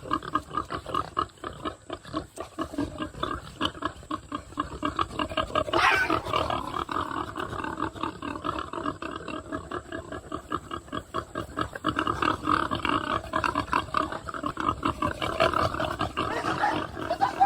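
Pigs grunting, many short grunts in quick succession, with one louder, higher call about six seconds in.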